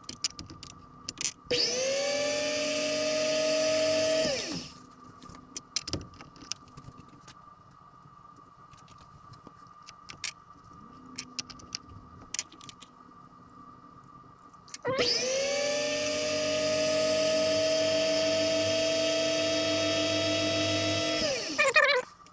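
Small electric motor spinning a clock wheel while its pivot is trued on an oiled stone. It runs twice, for about three seconds and then about six, each time rising in pitch as it starts and dropping as it stops, with light handling clicks in between.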